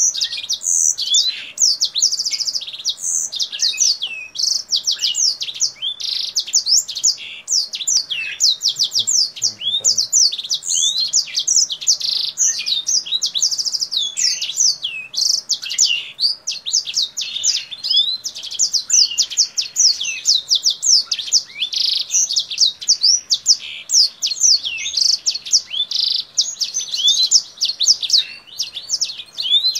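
Caged kingthroat, a small seedeater finch, singing continuously in a fast, high-pitched twittering song of quick rising and falling notes, similar to a black-throated canary's song.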